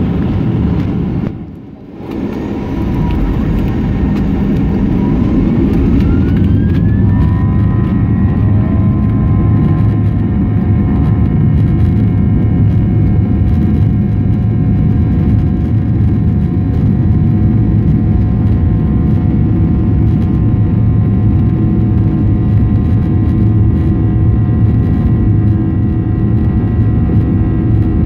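Airliner jet engines heard from inside the cabin, spooling up with a rising whine over the first several seconds as takeoff thrust is applied, then running steady: a high whine over a heavy low rumble.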